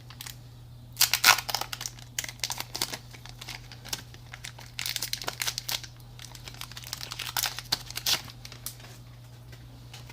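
Foil wrapper of a Pokémon card booster pack crinkling and tearing as it is handled and opened, in irregular crackly bursts, over a steady low hum.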